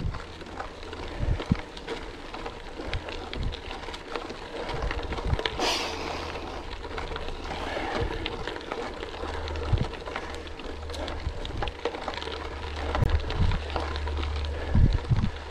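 Gravel bike tyres crunching over a loose gravel surface, with many small rattling clicks and a steady low wind rumble on the microphone; a brief louder hiss about six seconds in.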